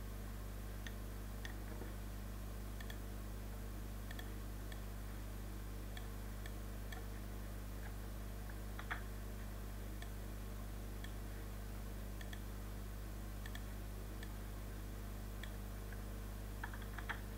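Computer mouse clicking now and then at an uneven pace over a steady low electrical hum, with a sharper click about halfway through and a quick run of clicks near the end.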